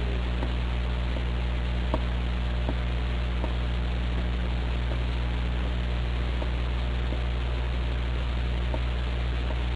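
Steady hiss and low electrical hum from an old film soundtrack, with a few faint, scattered ticks.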